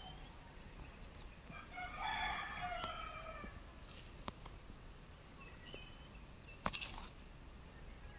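A rooster crows once, about two seconds in, a drawn-out call lasting over a second. A few sharp clicks follow, the strongest near the end.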